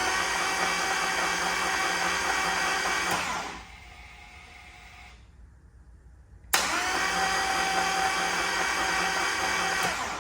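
Electric starter of a 2023 Harley-Davidson Low Rider S whirring in two tries, about three seconds each, the first winding down as it stops; the engine never fires, the bike being a no-start after losing power and grinding while riding. A fainter steady hum sounds between the two tries.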